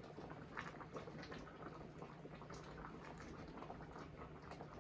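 Pot of stew peas simmering on a stove turned down low: faint, scattered bubbling pops over a low steady hum.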